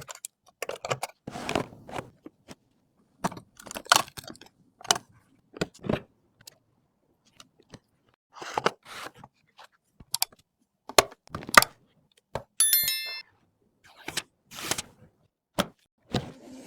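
Close-up handling of PC components during assembly: a string of separate clicks, taps, rustles and scrapes with short silences between them. About twelve and a half seconds in, a brief run of stepped electronic tones sounds.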